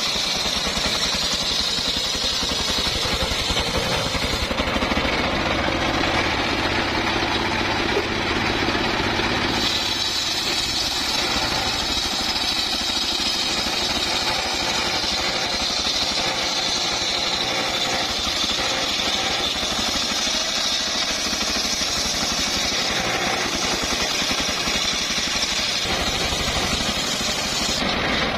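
Homemade engine-driven circular saw bench cutting a log lengthwise: a high whine from the blade in the wood over the engine running steadily.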